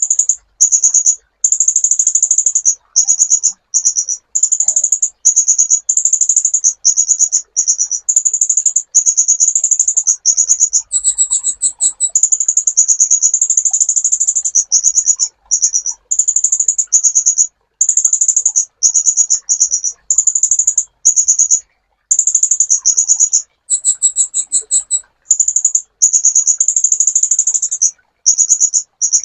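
Kolibri ninja sunbird singing: rapid, high-pitched buzzy trills in phrases of about half a second to a second and a half, separated by short gaps, with two higher, sharper phrases about eleven and twenty-four seconds in.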